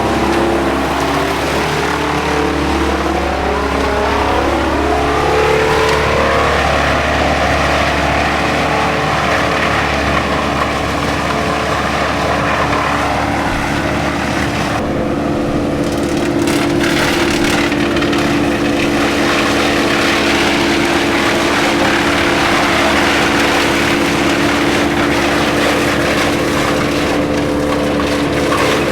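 Wood chipper engine revving up over the first few seconds, then running loud and steady at high speed.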